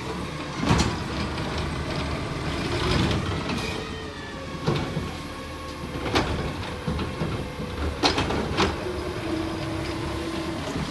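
McNeilus ZR automated side-loader garbage truck running while its hydraulic arm lifts a green-waste cart over the hopper and dumps it, with about five sharp knocks of the cart and arm hitting the truck. A short steady whine comes near the end as the arm lowers.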